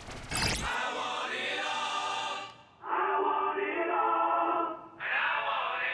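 A short burst of noisy, sweeping video-game sound effects, then choral singing in three phrases with brief breaks between them: the soundtrack of a TV commercial.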